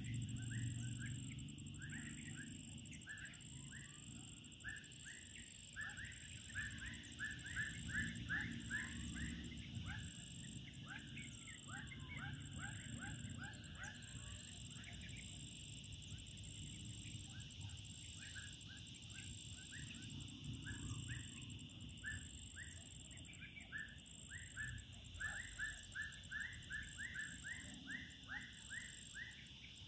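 Wildlife chorus: a steady high-pitched insect drone, with runs of quick, short chirping calls repeating throughout, loudest about eight seconds in and again near the end.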